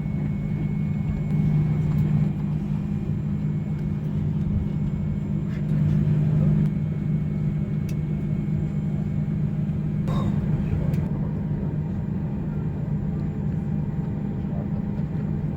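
Steady low drone inside the cabin of a Boeing 737-400 on the ground before departure, with a brief click about ten seconds in.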